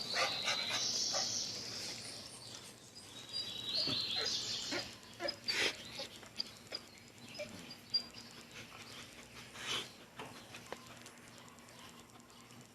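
A dog making high-pitched sounds over the first five seconds, with sharp clicks among them, then scattered quieter clicks and knocks.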